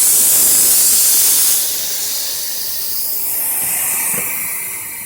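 Air ride suspension hissing as compressed air rushes through the valves under switch-box control. The hiss is loud at first, eases off about a second and a half in, and fades away near the end.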